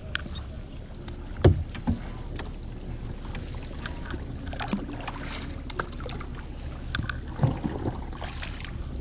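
Kayak paddle strokes splashing in the water, with water lapping along the hull and scattered clicks. A sharp knock about one and a half seconds in is the loudest sound.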